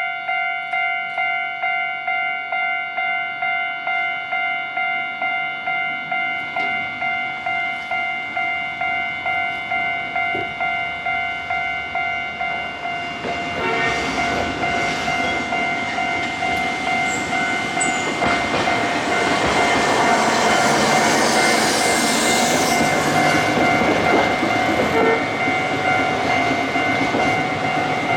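Japanese railroad-crossing warning bell clanging 'kan-kan' about twice a second throughout. From about halfway through, a Hankai Tramway car passes over the crossing, its wheels rumbling on the rails under the bell, loudest near the end.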